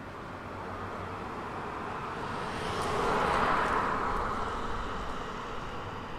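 A vehicle passing by: a rushing noise that swells to its loudest about three seconds in, then fades away, over a steady low city hum.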